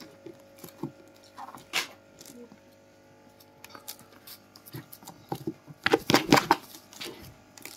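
A small pet scrabbling and scratching on its homemade stick-and-paper house, with scattered light clicks. A short burst of louder scraping and clattering comes about six seconds in.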